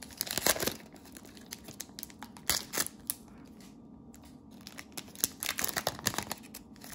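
Cellophane wrapper of a cello pack of trading cards crinkling and tearing as it is opened, in irregular crackles with a lull midway.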